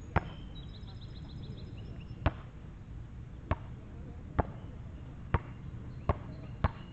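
A basketball bouncing on an outdoor asphalt court: seven sharp bounces at uneven intervals as it is picked up, carried and dribbled.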